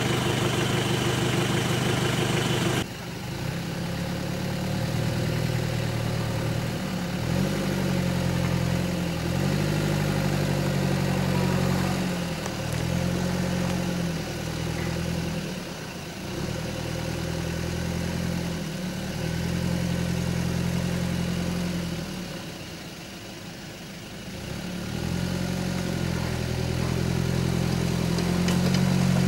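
Toyota Land Cruiser 4x4 engine working under load as the truck crawls through a deep muddy rut, its revs rising and falling every few seconds. The revs sag low about three quarters of the way through, then build again.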